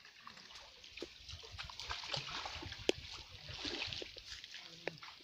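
Light splashing and dripping of pond water, with many small scattered clicks and one sharper click about three seconds in.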